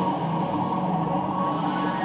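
Live band music: a dense, steady wash of layered sustained tones with no clear beat.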